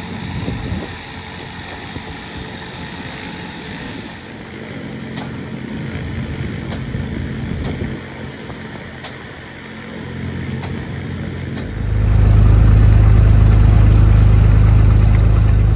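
A low rumble with a few sharp clicks while the Stinson's propeller is swung by hand. About twelve seconds in, the 1948 Stinson's piston engine is heard running, much louder and steady, from inside the cabin.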